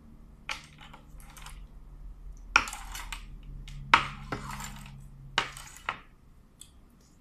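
Cooked blue crab shells being cracked and broken apart by hand: about six sharp snaps, several followed by a brief crackle of splintering shell, the two loudest a little over a second apart in the middle.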